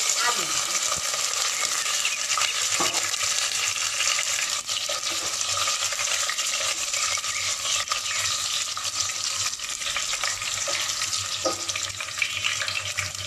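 Cubed, already-fried potatoes sizzling in hot oil with whole cumin seeds in a nonstick pot, a steady frying hiss, as a plastic spatula stirs them with a few light scrapes and knocks.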